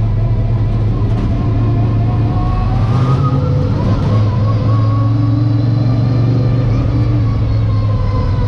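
Late model stock car's V8 engine heard from inside the cockpit, running at a fairly steady speed. Its pitch rises slightly about three seconds in, then eases off.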